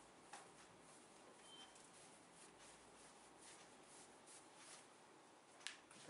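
Near silence: room tone with a faint hiss and a few faint scattered clicks, the sharpest near the end.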